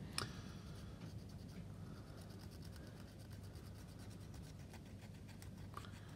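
Faint, quick scratchy strokes of a cotton bud rubbing over plastic model parts, wiping dried enamel wash off the surface.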